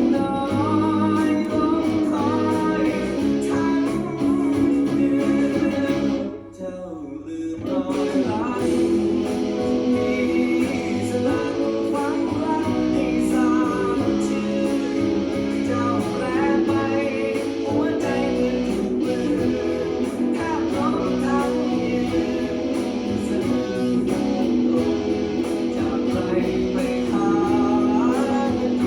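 Guitar music: a melody line over steady held chords, with a short drop-out about six seconds in before the playing resumes.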